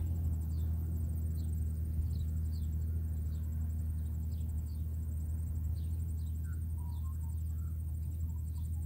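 Distant steady low drone of a Nissan Safari's engine pulling up a steep grassy slope. Over it come repeated short insect chirps and a high pulsing trill, with a few bird notes from about six seconds in.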